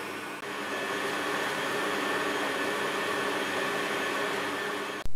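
Kenwood Chef stand mixer motor running steadily as it mixes minced beef with spices, getting a little louder about half a second in and cutting off just before the end.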